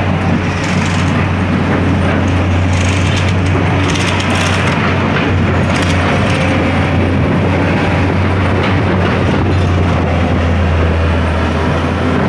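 Track-laying machine and its sleeper wagons at work on the rails: a steady low engine drone with a rumble of rolling steel wheels, and a few brief sharp metallic sounds over it, about a second, three, four and a half, and six seconds in.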